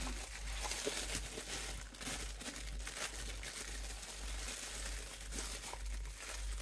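Plastic packaging crinkling and rustling as it is handled, a run of many small, irregular crackles.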